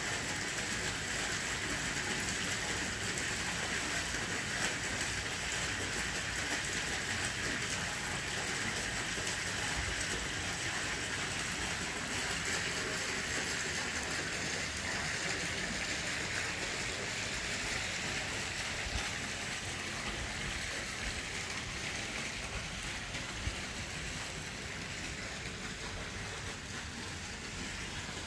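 Steady hiss of running water, even throughout and slightly softer in the last few seconds.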